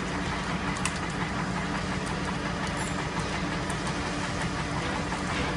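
Tractor-driven screw-cone log splitter running steadily, its threaded steel cone turning and boring into a log to split it, over an even engine-like hum.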